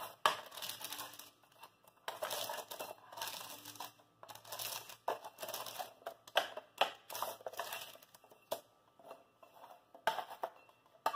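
Metal spatula sliding under baked sequilhos cookie rings on a paper-lined baking tray: repeated scraping strokes with the baking paper crinkling. The strokes turn shorter later on, with a few light clicks.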